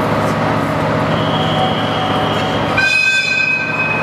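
Train standing at a station platform with a steady rumble. About three seconds in, a train horn sounds one long, steady high note.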